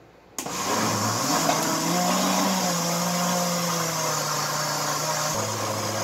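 Countertop kitchen blender switched on about half a second in, its motor running steadily as it blends thick chocolate cake batter with freshly added flour and cocoa powder. The motor's hum rises in pitch over the first couple of seconds and drops suddenly near the end.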